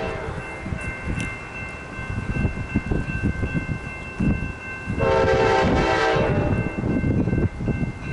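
Approaching Amtrak locomotive's K5LA five-chime horn: the tail of one blast at the very start, then a long blast about five seconds in lasting some two and a half seconds, as it whistles for the grade crossing. Underneath, the crossing's General Signal Type 2 electronic bell rings steadily, over a low rumble.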